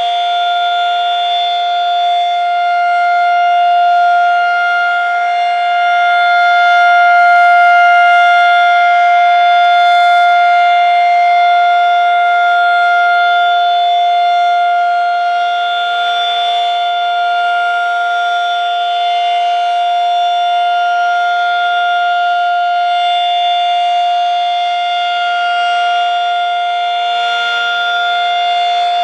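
Federal Signal 2001-130 rotating outdoor warning siren sounding its test at full speed. It holds one steady pitch, with the loudness slowly swelling and fading as the rotating siren head sweeps past.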